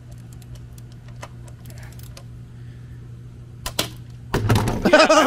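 Ratchet wrench clicking in short irregular runs as it turns the oil drain plug out of the oil pan, over a steady low hum. Near the end a loud burst of noise, then a loud warbling tone cuts in.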